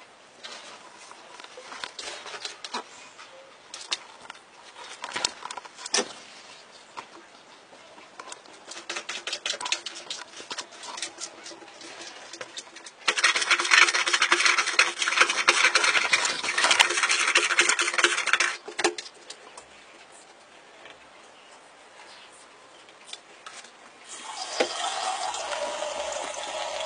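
A cat scratching and pawing at paper in a toilet-training seat, in scattered soft scrapes and taps. About 13 s in, a loud rustle of toilet paper starts as the cat works the roll, and it lasts about six seconds. Near the end a water tap starts running into the sink.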